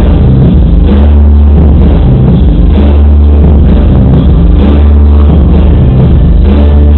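Loud music with a heavy bass line, recorded so loud that it is overloaded.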